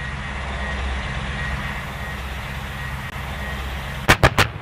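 PzH 2000 self-propelled howitzer's engine running with a steady low rumble, then three sharp, loud bangs in quick succession about four seconds in.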